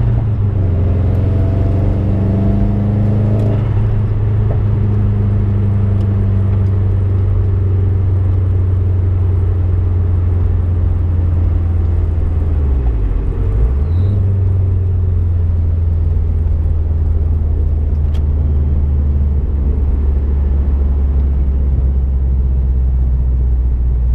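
Turbocharged flat-four engine of a Subaru Impreza running at a steady pitch, with a brief dip in engine note and back up about thirteen seconds in.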